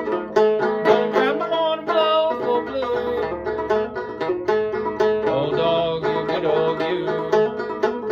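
Kentucky-style mountain banjo played solo in an open gCGCD tuning: a steady, rhythmic old-time picking pattern of plucked notes over ringing open strings.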